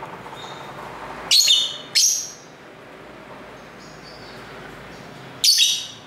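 Caged lovebird giving three short, shrill, high-pitched calls: two close together a little over a second in and one near the end, over a steady low background hiss.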